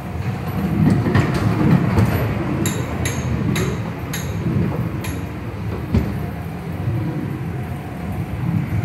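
Ghost train ride car rumbling along its track. About three seconds in comes a quick run of about six sharp, ringing metallic clicks, about two a second, and a single knock follows near six seconds.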